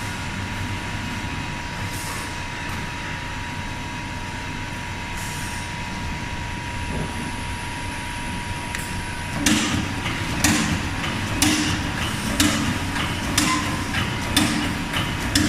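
CNC hydraulic hole punching machine running with a steady hum and a constant tone, then, a little past halfway, punching angle iron with a sharp bang about once a second.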